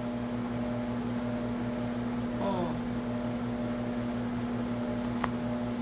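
A steady low electrical hum, with a faint short voice about two and a half seconds in and a single click near the end.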